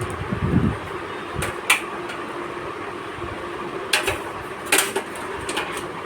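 Sharp clicks and knocks of computer parts and cable connectors being handled during assembly, with a low thump about half a second in and distinct clicks near 2, 4 and 5 seconds, over a steady low hum.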